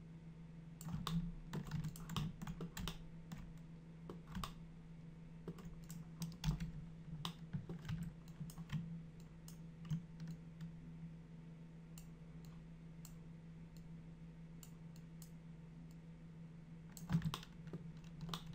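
Computer keyboard and mouse clicks at a workstation, irregular taps in clusters over the first half, a sparse stretch, then a quick burst near the end. A steady low hum runs underneath.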